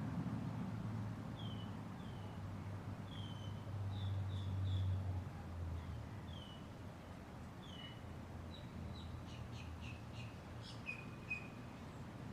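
Small birds chirping: short, repeated downward-sliding chirps, with a quicker run of chirps and clicks near the end. A low steady hum sounds underneath and fades somewhat about five seconds in.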